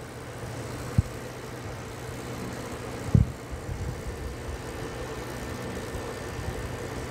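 Computer-controlled monochromator's wavelength drive running steadily as it scans up toward 540 nanometres, a steady hum. Two short low thumps, about a second in and about three seconds in.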